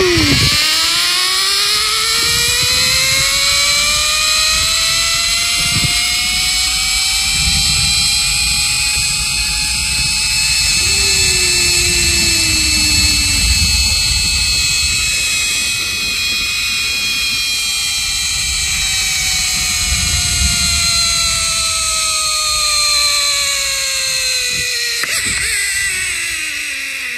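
A whirring mechanical whine that climbs in pitch over several seconds, holds steady, then slowly falls near the end, like a wheel or motor spinning up, running and winding down.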